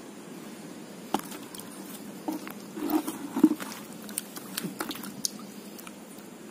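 Irregular small splashes and sharp clicks of stones knocking in shallow water, as hands or feet move among wet rocks. The busiest and loudest stretch is in the middle.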